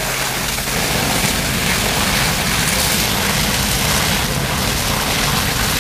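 Steady loud rush and low rumble of fireground noise: fire engines running their pumps while hose streams spray onto the burning building. The low rumble grows about a second in.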